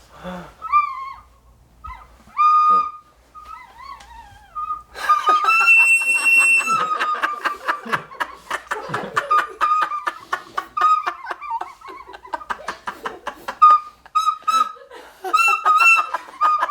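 Recorder blown in short, wavering squeaks on about one high note, then a longer held note from about five seconds in, mixed with loud laughter. Each note escapes when the player, hit while the recorder is in their mouth, fails to hold their breath against the pain.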